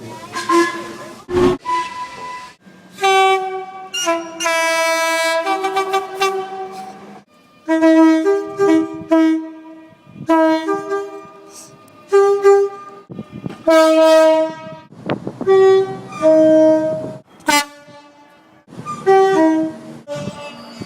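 Train horns sounding a string of short two-tone calls, a high note and a low note alternating, one clip cut hard after another. A few brief rushes of passing-train noise lie between the blasts.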